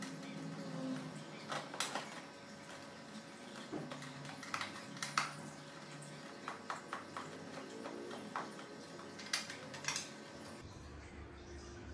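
Motorcycle seat being pressed down and fitted back into place on a Harley-Davidson Street Rod 750: a scattering of faint, irregular clicks and light knocks, with a small cluster of quick taps in the middle.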